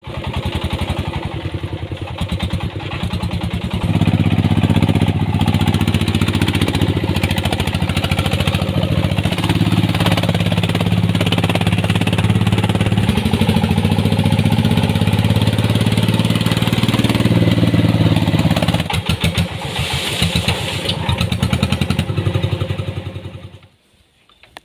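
Single-cylinder diesel engine of a homemade Ledok dump truck running, its firing strokes heard as a rapid even beat. It is louder from about four seconds in to about nineteen seconds, then uneven, and it cuts out near the end.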